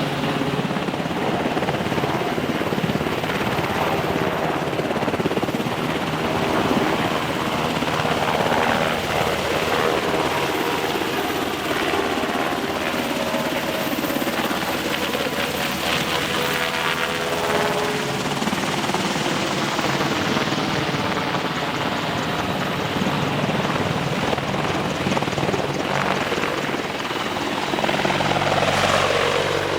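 Military helicopter running with its twin turboshaft engines and rotor giving a steady, loud noise. The sound shifts near the end to a stronger low hum.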